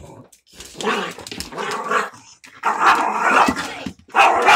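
Frightened small dog growling in three long, loud stretches as it resists being handled.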